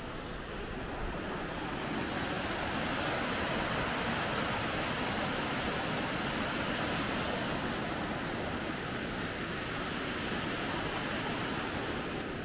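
River water rushing over a low concrete weir, a steady, full rush of white water that swells about two seconds in and eases near the end.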